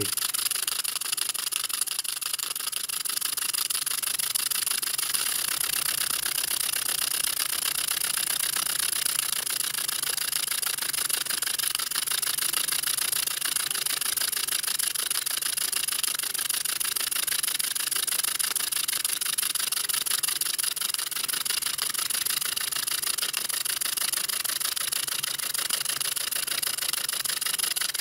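Handmade brass V-twin model steam engine running steadily, new and not yet run in: an even, continuous hiss of exhaust steam.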